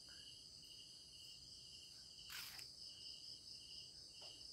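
Faint insect chirping: a steady high trill with a pulsing chirp beneath it about twice a second. A single sharp click comes a little past the middle.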